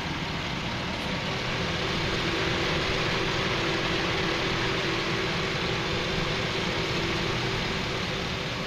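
5.3-litre Vortec V8 of a 2006 GMC Sierra idling steadily, heard up close in the open engine bay: an even hum under a hiss, a little louder for a few seconds in the middle. The seller calls it running like it's brand new.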